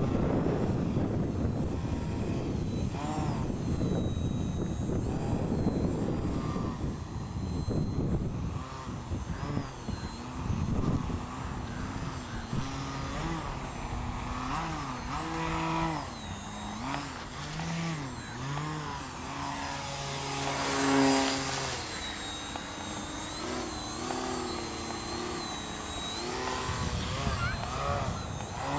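Electric brushless motor and propeller of an RC model plane, its pitch rising and falling over and over as the throttle is worked to hold a hover. Wind buffets the microphone heavily during the first several seconds, and the motor swells louder about two-thirds of the way through.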